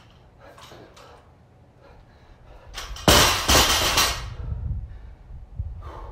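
A 135 lb barbell loaded with rubber bumper plates dropped onto rubber floor mats after a squat clean. One loud crash about three seconds in, followed by about a second of the plates bouncing and rattling.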